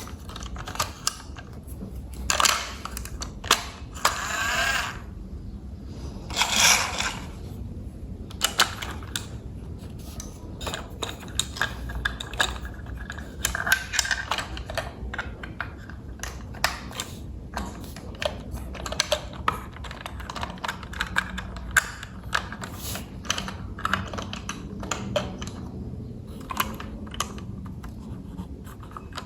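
Small plastic toy-train parts clicking and rattling as they are handled and fitted together, with irregular sharp clicks throughout. Three longer scraping or rustling sounds come in the first few seconds.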